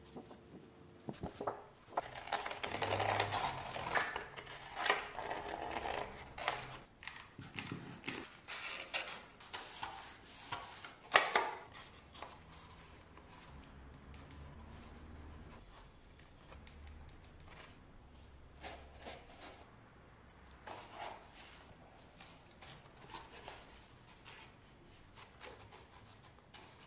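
Cardstock paper being handled and cut: dense rustling, crinkling and small clicks, with one sharp loud click about eleven seconds in. After that the handling turns quieter, with scattered light taps.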